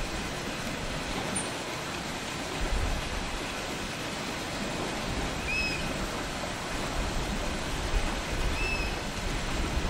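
Sea surf washing over a rocky shoreline: a steady hiss of moving water with low swells of rumble. Two faint short high chirps come through it, one around the middle and one near the end.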